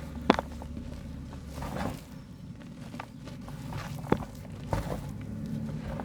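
Mud being crumbled and broken by hand, with a few sharp cracks and softer crumbling sounds over a low steady hum.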